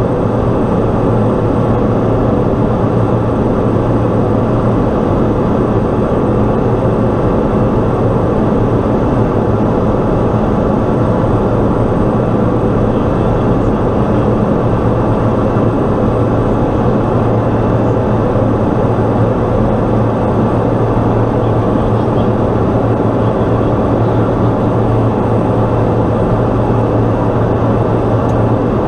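Pilatus PC-12's single Pratt & Whitney PT6A turboprop engine and propeller running steadily during descent on approach, heard from inside the cockpit as a loud, even drone with a constant low propeller hum.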